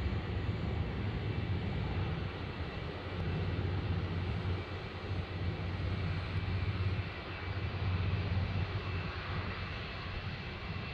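Jet engines of an Air New Zealand Boeing 787-9 on final approach with its gear down: a steady low rumble that swells and fades, with a faint high whine over it.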